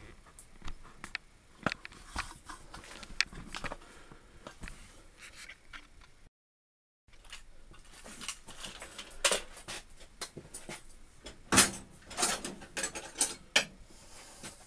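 Scattered light clicks and knocks of hand work on a new bench drill's metal parts, with several sharper knocks in the second half. The sound cuts out completely for under a second midway.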